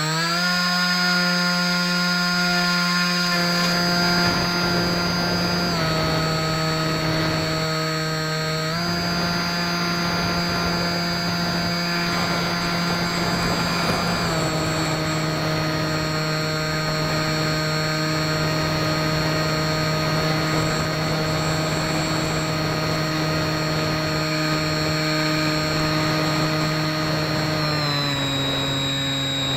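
Bixler 2 RC plane's electric motor and propeller whining steadily over a rushing hiss. The pitch climbs quickly at the start, then steps down, up, and down again as the throttle is changed.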